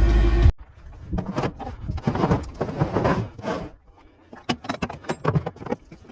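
Background music cuts off about half a second in, followed by faint voices and a string of sharp clicks and knocks.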